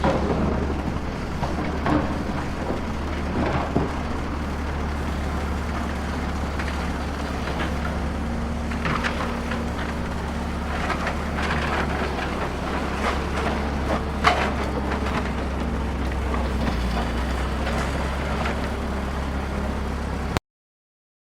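Steady low engine drone of a working excavator, with scattered clatter of dirt and small stones; the sound cuts off abruptly near the end.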